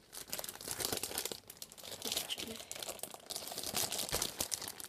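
Plastic wrapping on a trading-card binder crinkling and crackling as hands grip and pull at it to open it, with a low bump about four seconds in.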